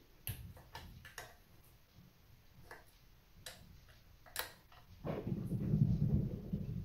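Screwdriver working the tight screws on a microscope head's metal base plate: a handful of sharp, scattered clicks as the tip engages and turns in the screw heads, then about five seconds in a louder, low rubbing, scraping noise as the screw is turned and the housing handled.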